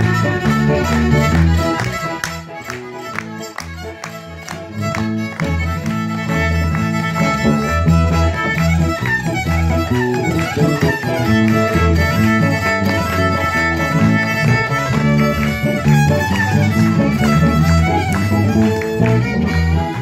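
Live country band instrumental with the fiddle playing lead over guitars and a pulsing bass line. The music eases off for a few seconds a couple of seconds in, then picks back up.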